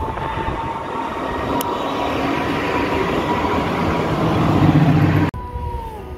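Dresden low-floor tram approaching and passing close by: a steady whine over the rumble of wheels on the rails, growing louder as it comes near. The sound cuts off suddenly about five seconds in, and a fainter falling whine follows.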